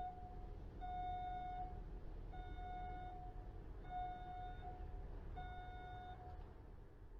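A vehicle's reversing alarm sounding long, even beeps about every second and a half over a low engine rumble.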